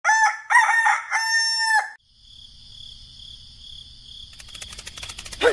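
Rooster crowing once: two short notes, then a long drawn-out final note, about two seconds in all. It is followed by a faint steady high-pitched buzz, with rapid clicking coming in about four seconds in.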